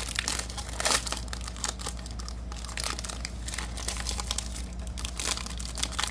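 Crinkling and tearing of a trading-card pack's plastic wrapper as it is opened, in irregular crackles with the loudest about a second in, over a steady low hum.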